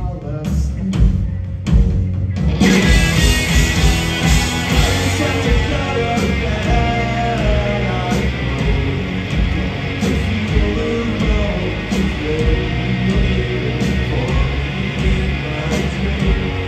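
Live punk rock band playing loud. For the first couple of seconds only drums and bass play, then the full band with guitars comes in about two and a half seconds in and keeps going.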